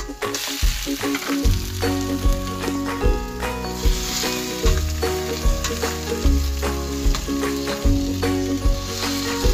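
Onion, ginger and then raw chicken pieces sizzling in hot oil in a stainless steel pot, stirred with a metal ladle. The sizzle grows louder about four seconds in. Background music with a steady beat plays along.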